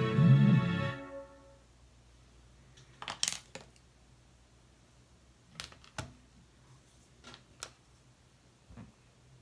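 A song stops about a second in, followed by scattered light clicks and taps, the loudest about three seconds in, from makeup tools and containers being handled.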